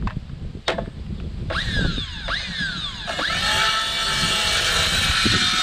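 Cordless circular saw cutting a rough-cut 2x8 plank. It starts with a few short whines that fall in pitch, then runs steadily with a high whine through the cut from about three seconds in.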